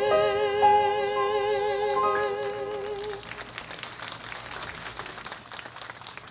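Singers hold the final notes of a song with vibrato, ending about three seconds in, then the audience applauds.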